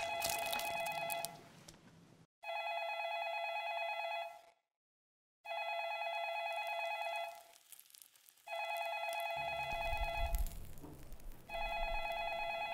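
Landline telephone ringing over and over, each ring a steady tone about two seconds long with a pause of about a second between rings. A low rumble comes in under the last few rings.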